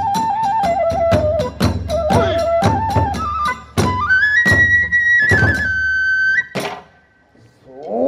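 Kagura hayashi music: a transverse bamboo flute plays a melody that steps downward and then rises to a held high note, over regular drum strikes. The music stops with a final stroke about six and a half seconds in.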